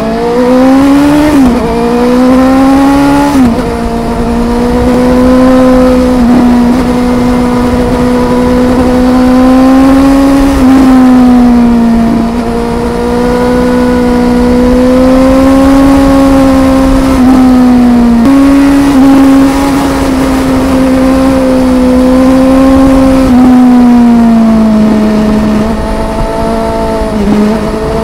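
Suzuki GSR750's inline-four running through a Yoshimura R-11 exhaust under way, the engine note climbing and falling with the throttle, with several sudden drops in pitch.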